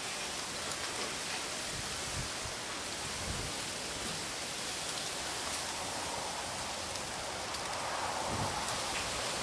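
Strong wind blowing through bamboo, a steady rushing rustle of leaves, with gusts hitting the microphone as scattered low thumps.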